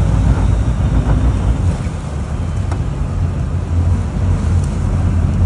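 Sportfishing boat's engine running with a steady low rumble, mixed with wind buffeting the microphone and the wash of sea water.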